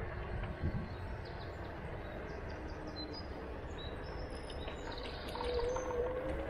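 Steady outdoor background noise, mostly a low rumble, with a few faint short high chirps scattered through it.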